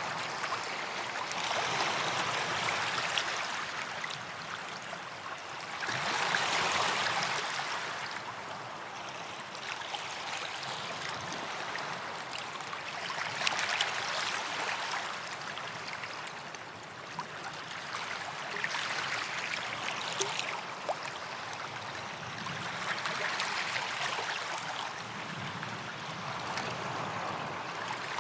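Small waves lapping and washing onto a sandy beach, the hiss of the water swelling and fading every five seconds or so as each wave comes in.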